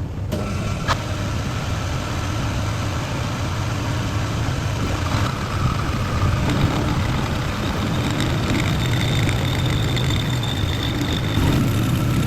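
Bench grinder running steadily while grinding excess steel off a hand-forged blade blank, a constant motor hum with a faint high whine.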